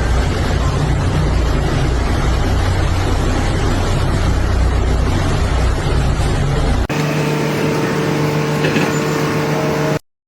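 A loud, steady rumble of heavy engine-driven machinery running. About seven seconds in it cuts abruptly to a different steady hum with a few held tones, which stops suddenly near the end.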